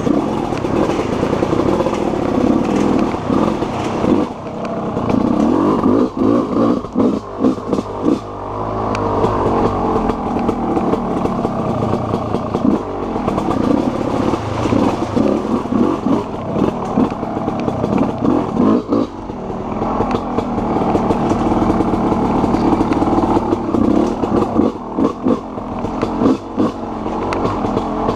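TM EN 300 two-stroke single-cylinder enduro motorcycle engine running, the revs rising and falling as the throttle is worked over and over. Knocks and clatter from the bike picking its way over a rocky creek bed run through it.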